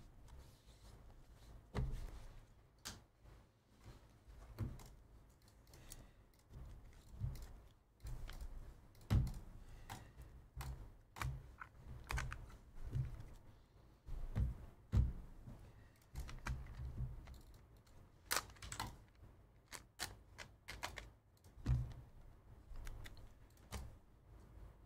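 Irregular light clicks, taps and low thumps from hands working at a desk: graded and top-loaded sports cards in plastic holders being set down and stacked, and keyboard typing.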